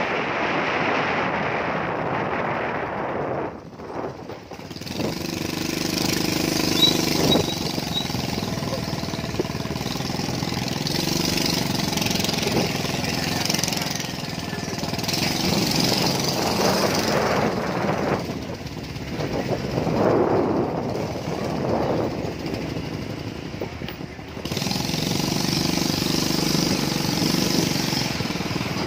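Small motorcycle engine running steadily with road and wind noise while riding, its pitch and loudness shifting as it slows and picks up again.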